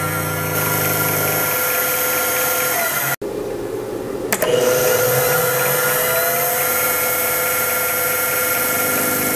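Mini mill spindle running with a woodworking roundover router bit, milling the edge of a UHMW plastic block: a steady motor whine. About three seconds in, the sound cuts out completely for about a second and comes back with a click.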